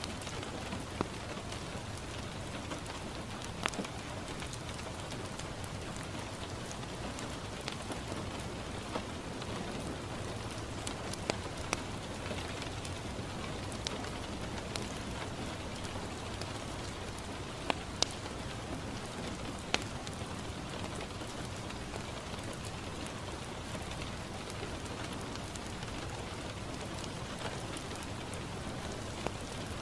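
Steady rain falling on a window glass, a constant even hiss, with scattered sharp pops and crackles from a wood fire in a fireplace.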